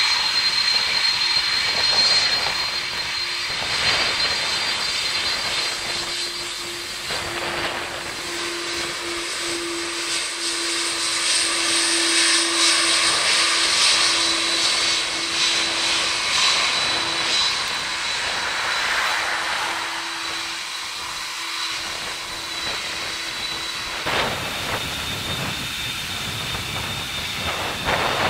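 Airbus A330 jet engines at taxi power: a steady high whine and a low hum over a broad rush of jet noise, growing louder as the airliner taxis past and then easing. About three-quarters of the way in, the sound changes abruptly to the engines of a taxiing Airbus A380.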